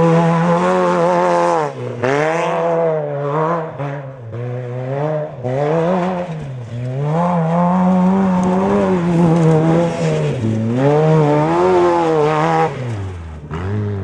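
Unlimited-class desert race buggy's engine at racing throttle, its revs repeatedly dropping and climbing again about every two to three seconds. It falls away near the end.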